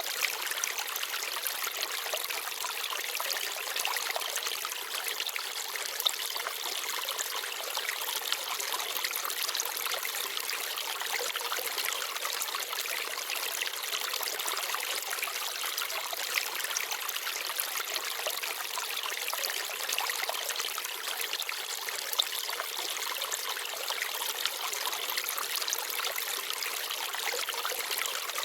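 A forest stream babbling and trickling steadily over stones. A few brief, sharper splashes stand out now and then.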